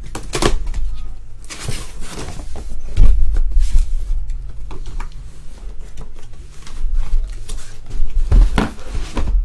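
Cardboard shipping case being handled on a table: scraping and rustling cardboard with many small knocks, and heavy thumps about three seconds in and again near the end as the case is moved.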